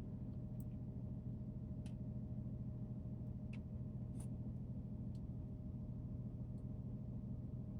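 Steady low background hum with a few faint, light ticks scattered through it, from fingers handling a tempered glass screen protector and its guide stickers on a smartphone.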